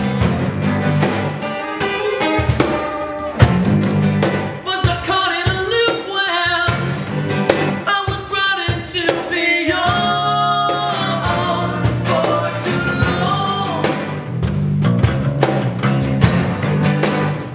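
Acoustic band playing: strummed steel-string acoustic guitars over an acoustic bass guitar, with a voice singing through the middle of the passage.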